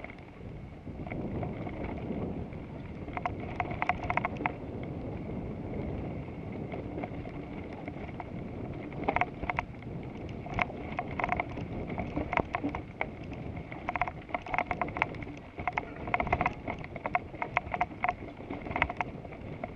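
Wind rushing over an action camera and tyre rumble from a road bike being ridden, with bursts of quick rattling clicks that come and go every second or two.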